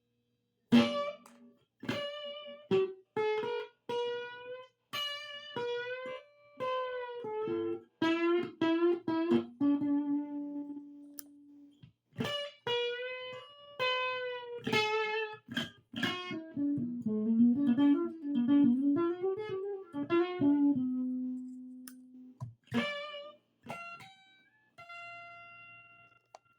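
Solo guitar playing a melody of single plucked notes, each ringing and dying away, in short phrases with brief pauses between them.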